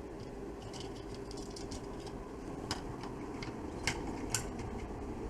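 Scattered light clicks and taps of small parts being handled on a workbench, a few sharper ones in the second half, over a steady low hum.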